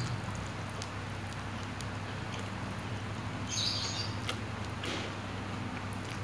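Close-up eating sounds of fried instant noodles: wet clicks of chewing and short slurps as strands are drawn into the mouth, the clearest slurp about three and a half seconds in, over a steady low hum.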